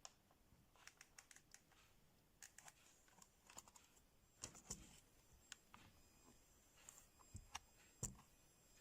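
Faint typing on the Astrohaus Freewrite Traveler's keyboard: irregular key clicks, with a few louder knocks about four and a half and eight seconds in.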